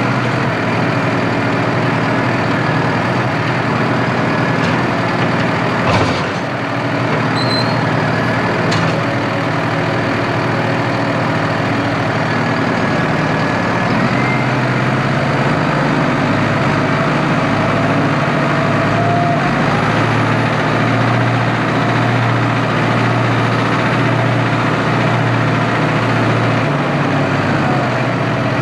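Farm tractor's diesel engine running steadily, heard from inside the cab, with a single knock about six seconds in and a few short rising whines later on.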